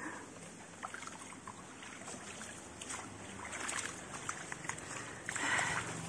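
Footsteps wading and splashing through shallow stream water, with a louder splash about five seconds in.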